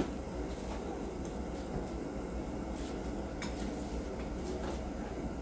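Steady low hum of room tone, with a sharp click right at the start and a few faint light ticks later on.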